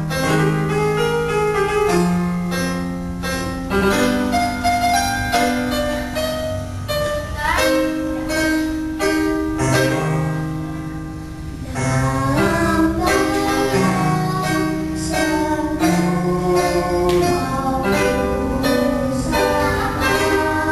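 Electronic keyboard playing a rhythmic accompaniment in a guitar-like plucked voice over a sustained bass line, with a girl singing into a microphone over it at times.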